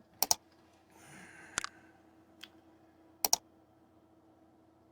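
Four sharp double clicks, evenly spaced about a second and a half apart, with a soft rustle before the second one.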